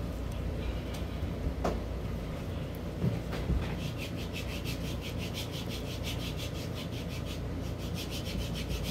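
Homemade white-glue slime being stretched and pulled slowly between the hands. From about four seconds in it gives a quick, even run of small clicks and crackles, about six or seven a second.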